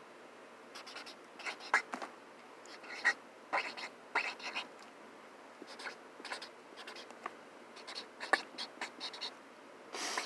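Felt-tip marker writing on a cardboard box: short scratchy strokes in irregular bursts, with pauses between them.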